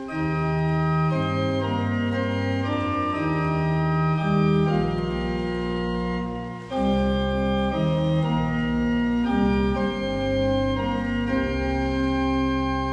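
Organ playing a hymn tune in sustained chords that change about once a second, with a short break between phrases about halfway through.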